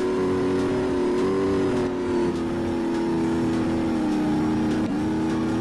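A vehicle engine running at a steady, even pitch, with a brief dip in pitch near the end.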